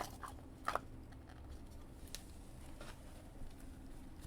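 A cardboard trading-card box being handled and opened by hand: soft rustling and light taps, with two quick sharp clicks about a second in and another a second or so later.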